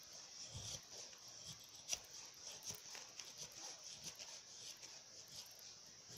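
Benchmade 940 Osborne folding knife shaving curls off a dry hazel stick: faint scraping strokes about once a second, with a sharper click about two seconds in.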